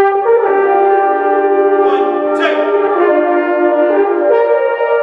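A wind band playing slow, sustained chords with the brass to the fore. The chord moves to new notes three times.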